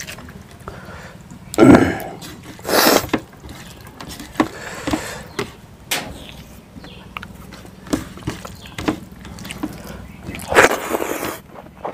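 Wet sounds of fingers mixing rice into pork curry on a plate and of mouthfuls being eaten, in several short bursts with small clicks between.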